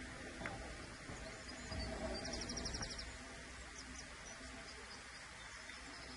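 Faint steady background noise, with a short, fast, high-pitched trill a little after two seconds in and a few faint high chirps later.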